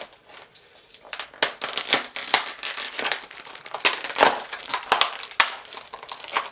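A plush surprise egg's shell being cracked, crushed and peeled apart by hand: a fast, irregular run of crackles and crinkling that starts about a second in.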